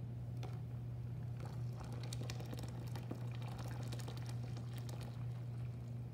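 Blended cucumber juice poured from one plastic bowl into another of frothy juice, splashing and pattering into the foam, over a steady low hum.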